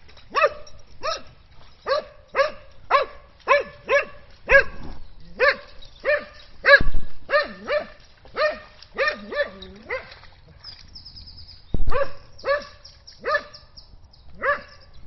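A dog barking repeatedly, about two sharp barks a second, pausing briefly about two-thirds of the way through before barking again.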